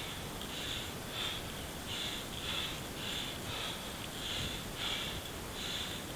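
A cyclist panting on a slow uphill climb, quick even breaths about every two-thirds of a second, over a steady hiss of wind and road noise. The rider is worn out and overheated from the climb in the heat.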